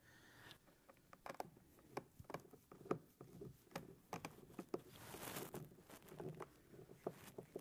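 Faint, irregular small clicks and scrapes of screws and a screwdriver being worked by hand to fasten a car door speaker grille, with a brief soft rasp about five seconds in.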